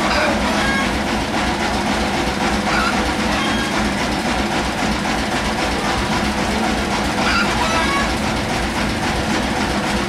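Large sawmill band saw machinery running steadily: a constant hum over a fast, low rhythmic throb.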